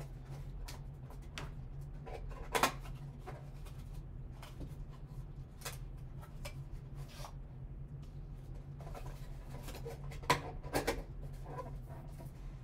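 Gloved hands handling a 2020 Panini Zenith football card box and its foil-wrapped packs: scattered rustles and taps, with louder clatters about two and a half seconds in and again around ten to eleven seconds in, over a steady low hum.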